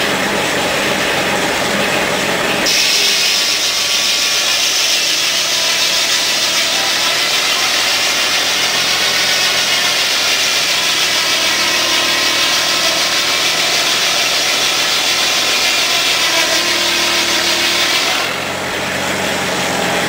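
Sawmill's large circular saw blade cutting through a log: a loud, steady sawing noise that starts about three seconds in and stops near the end. The engine driving the mill hums throughout.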